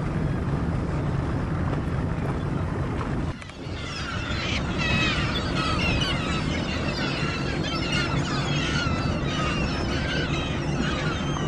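A boat's engine running with a steady low hum. From about four seconds in, a flock of seagulls calls over it, many short squawks overlapping, while the low rumble carries on beneath.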